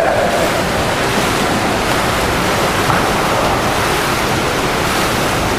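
Steady rushing splash of water churned up by water polo players swimming hard across the pool.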